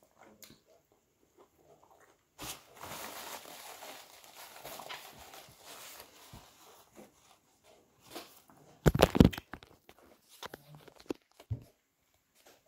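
Paper napkin rustling and crinkling as hands are wiped, starting about two seconds in and lasting about four seconds. About nine seconds in comes a loud thump, followed by a few small knocks.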